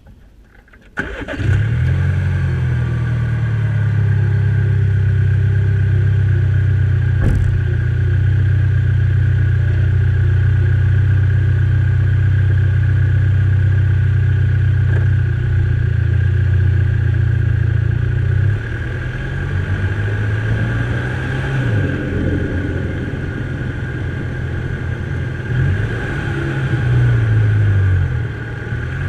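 Mini Cooper's 2.0-litre turbocharged four-cylinder engine starting suddenly about a second in, then running at a steady high idle. In the second half the revs rise and fall several times as the car is driven.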